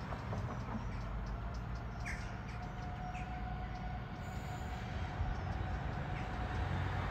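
Diesel freight locomotive approaching on a curve, its engine a low rumble that builds toward the end, with a steady tone over it. Birds chirp a few times.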